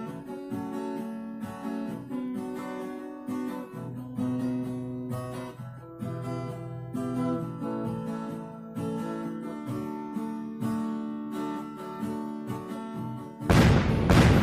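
Acoustic guitar played fingerstyle: a plucked melody over bass notes. Near the end a sudden loud rush of noise cuts in for about a second.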